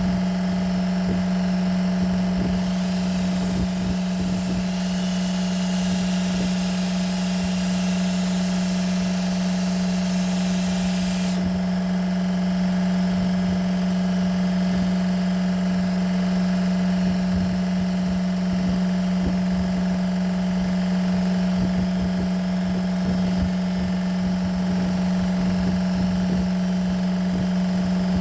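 A motor running steadily with a strong, even hum. A higher hiss joins it about two and a half seconds in and cuts off suddenly around eleven seconds.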